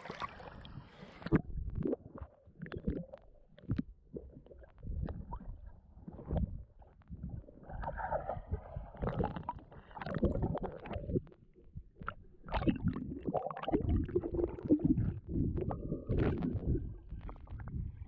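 Irregular muffled knocks and low rumbling of water moving around a small rowing boat.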